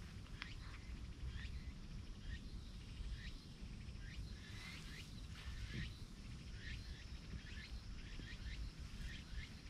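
Outdoor ambience: a steady low rumble with a string of short, high chirps repeating about one or two times a second.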